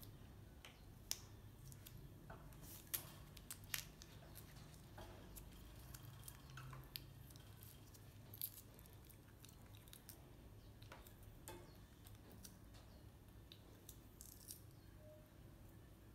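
Baby macaque eating fresh lotus seeds: faint chewing with scattered short sharp clicks, a few louder ones in the first four seconds and one about eight seconds in, over a steady low hum.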